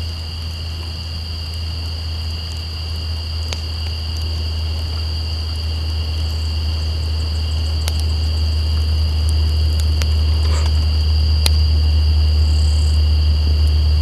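Semi-trailer truck's engine, a low drone growing steadily louder as the truck approaches. Underneath it, insects keep up a steady high two-tone trill, and a wood campfire gives a few sharp crackles.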